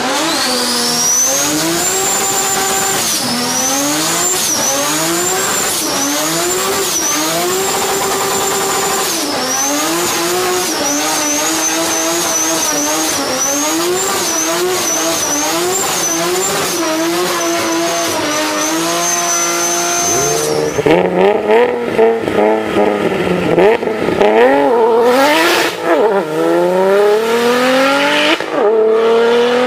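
Turbocharged car engine revved again and again, with a high turbo whistle rising and falling with each rev. About two-thirds of the way in it cuts to a turbocharged car accelerating hard, its engine note climbing in several rising sweeps as it shifts up through the gears.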